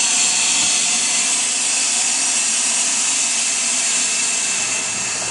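Fog machine running and blowing fog into a homemade vortex fog chiller: a steady hiss with a faint steady hum under it, easing slightly near the end.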